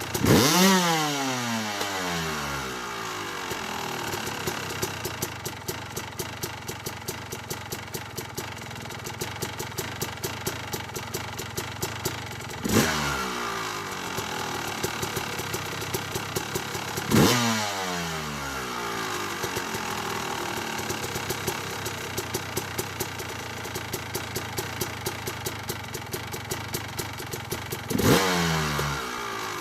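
2008 Yamaha YZ250 two-stroke motocross engine, fitted with a 285 big bore kit and an APT Smartcarb, running and blipped sharply four times, each rev dropping quickly back to a steady low running note.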